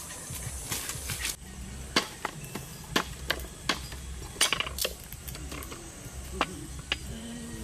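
A large knife chopping on a round wooden chopping board: a series of sharp knocks at irregular spacing, some in quick pairs, starting about a second and a half in.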